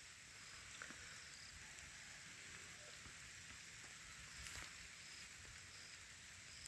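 Faint steady hiss of light rain falling, with a few soft ticks.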